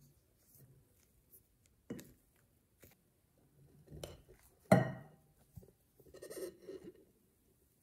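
Small household objects being handled, with a few scattered knocks and clinks. The loudest is a sharp knock a little past halfway.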